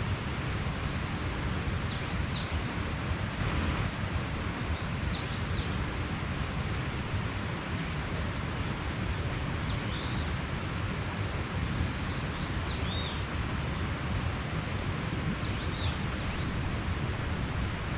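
Mountain stream rushing steadily, with a bird repeating short high chirps, often in twos, every two to three seconds.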